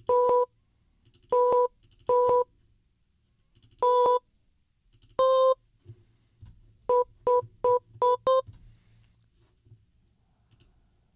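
Chopped vocal sample slices triggered from a sampler in Ableton Live: ten short stabs of a held sung note, each the same steady pitch. Five come singly with gaps, then five follow quickly in a run about three a second.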